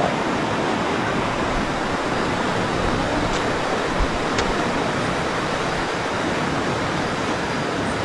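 Steady rushing of river water, with a couple of brief knocks, one at the start and one about four seconds in.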